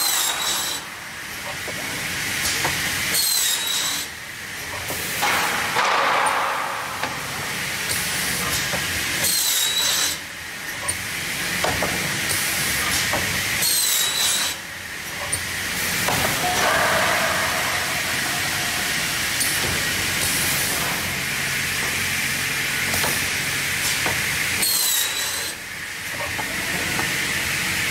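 Bottene Push 250R cross-cut saw's circular blade cutting through stacks of pine boards, several cuts a few seconds apart. Each cut pulls the blade's high whine down in pitch, and it rises back as the blade clears the wood, over a steady hiss of the running machine.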